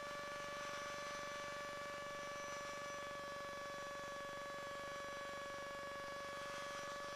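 The Challenger II ultralight's engine running at a steady RPM in cruise, heard in the cockpit recording as an even hum with a whine held at one pitch. The engine is running with its cooling-fan belt failed.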